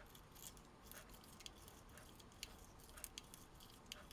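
Near silence with faint, scattered small clicks and taps, a few a second, from small parts being handled at a workbench.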